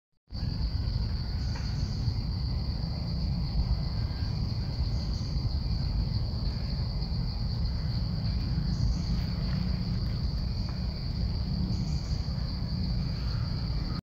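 Insects droning steadily at one high pitch, with faint extra insect calls coming and going above it, over a steady low rumble.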